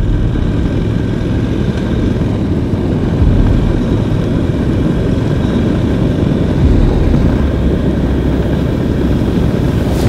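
Honda NC750X parallel-twin motorcycle riding along at a steady pace: the engine's drone mixed with heavy wind rumble on the on-board microphone.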